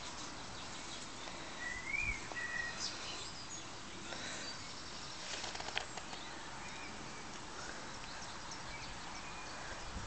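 Quiet outdoor background with an even hiss, broken about two seconds in by two short high chirps, the first rising then falling, and a few faint light ticks around five to six seconds.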